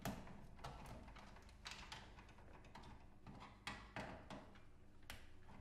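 Faint, irregular clicks and taps of a screwdriver working screws out of a CRT television's plastic casing, about ten in all, the loudest right at the start.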